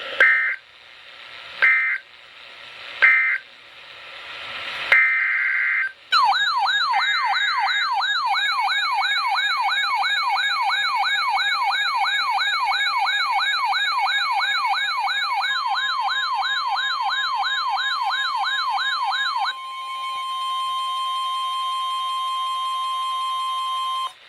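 Emergency alert tones for a weather-radio warning. First come four short, high electronic data bursts. Then an electronic siren sweeps upward in pitch about three times a second for some thirteen seconds, and about two-thirds of the way through it gives way to a steady single alert tone near 1 kHz.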